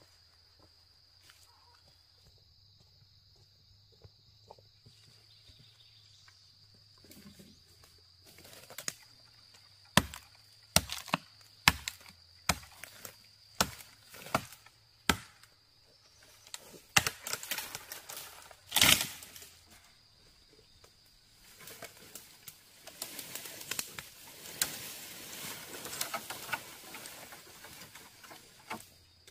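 A run of sharp knocks, roughly one every second, then a louder cluster of knocks and several seconds of rustling. A faint steady high-pitched tone sits underneath.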